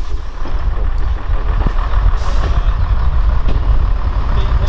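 Diesel heritage train moving past on the adjacent line, a deep, steady engine rumble that grows louder over the first couple of seconds.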